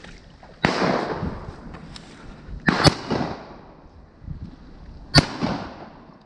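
Three shotgun shots, about two seconds apart, each followed by an echo that dies away over about a second.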